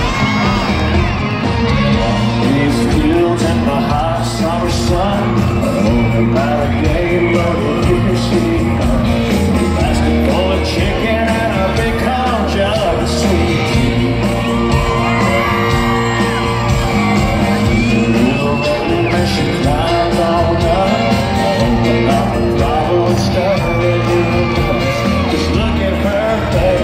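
Live country-rock band playing, with electric guitars and drums, and a man singing lead into a microphone. Audience shouts and whoops are mixed in, recorded from among the crowd in a large arena.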